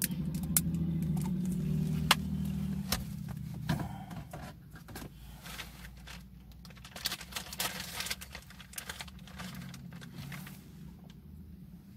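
A plastic squeeze bottle sputtering and clicking as sauce is squeezed onto bread, then bread being chewed with soft crackling and clicking mouth sounds. A steady low hum is loudest in the first few seconds and comes back briefly near the end.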